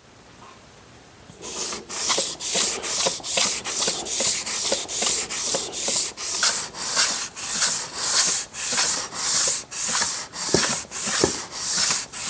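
Cast-iron sole of a Stanley Bailey No. 5 hand plane rubbed back and forth on wet sandpaper to flatten it, a rasping stroke about twice a second that starts a little over a second in.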